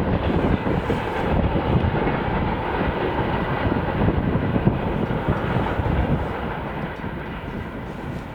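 Freight train hauled by a 2TE10M-K diesel locomotive rolling past with a steady rumble that begins to fade about six seconds in.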